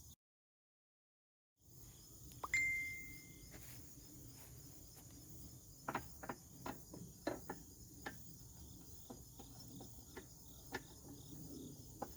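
Metal clinks and knocks as a blade removal tool is fitted and screwed down onto a mower blade, with one sharp metallic ping that rings for about a second, and a run of lighter taps and clicks later on. Crickets chirp steadily in the background, and there is a moment of dead silence at the very start.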